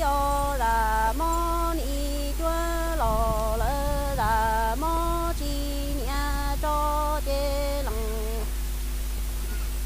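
A woman singing Hmong kwv txhiaj, unaccompanied, in long held notes that step up and down between pitches, some with a slight waver. Her voice stops about eight and a half seconds in, leaving a steady low hum.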